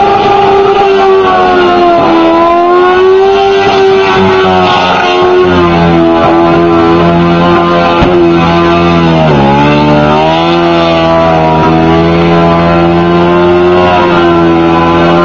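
Quad bike engine held at high revs during a burnout, spinning its rear tyres: a steady, high-pitched drone that dips and climbs back a couple of times.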